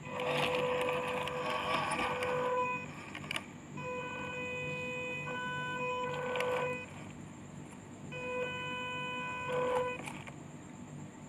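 Electric drive motor and gearbox of an MN78 remote-control crawler truck whining in three runs of driving, each a steady high whine of two to three seconds. The first run has a rougher hiss mixed in.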